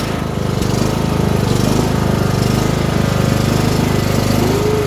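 Cub Cadet riding mower engine running steadily just after being started, with a fast even pulsing.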